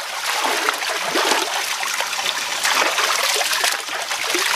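Hands scooping and sweeping through a shallow stream, splashing, with water trickling back down from cupped hands as it is drunk, over the stream's flow.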